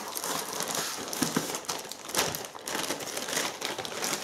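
Clear plastic zip-lock bags crinkling as they are handled, a steady run of crackles with a louder burst about two seconds in.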